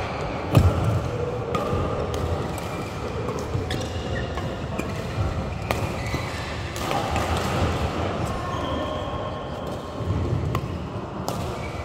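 Badminton rally: rackets strike the shuttlecock in sharp smacks, roughly one every second or so at irregular intervals, with brief squeaks of court shoes in between, ringing in a large sports hall.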